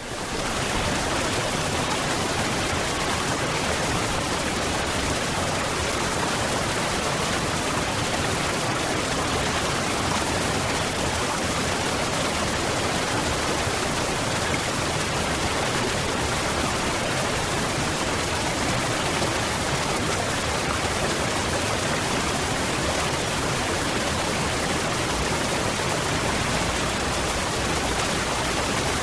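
Waterfall: a steady, even rush of falling water that rises in quickly from silence at the very start and then holds at one level.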